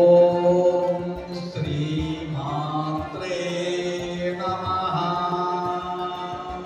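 A devotional chant sung in long held notes, the voice stepping from one sustained pitch to the next every second or two.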